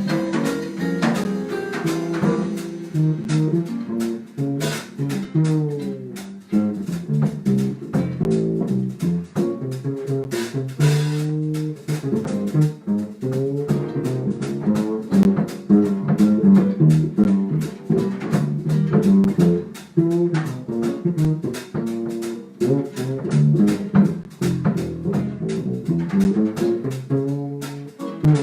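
Live small-group jazz: quick plucked-string melody and chords over bass, with light drums.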